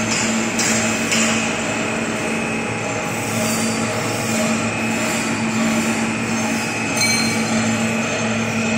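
EVA cast film extrusion line running: a steady machine hum with a low drone and a thin higher whine over a constant rush of noise. A few short hisses come in the first second or so, and a brief click about seven seconds in.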